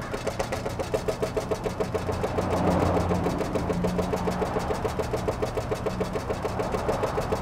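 An engine running steadily, with a regular pulsing beat about seven times a second over a low hum.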